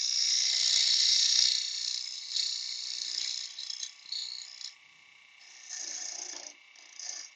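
A woodturning gouge cutting across the face of a wooden box blank spinning on a lathe, a rasping hiss of shavings coming off; the gouge could do with sharpening. The cut is continuous for the first couple of seconds, then comes in shorter passes that grow quieter after about five seconds, with a couple of brief cuts near the end.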